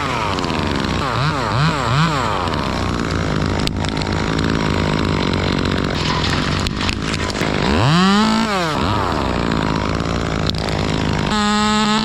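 Two-stroke chainsaw running at idle and revved on the throttle: three quick blips about a second in, a longer rev up and back down about eight seconds in, and a high steady rev near the end.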